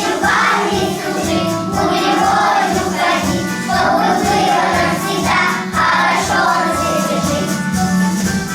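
Children singing a song together over a recorded backing track with a steady beat.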